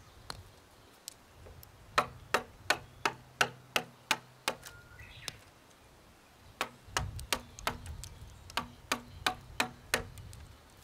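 Chisel struck with a mallet, chopping into a chestnut beam to cut a kanawa tsugi scarf joint. Sharp knocks at about three a second, in two runs of eight to ten blows with a pause between.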